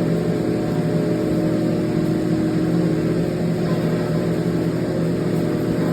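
A steady mechanical drone: a constant hum with a loud, even hiss over it.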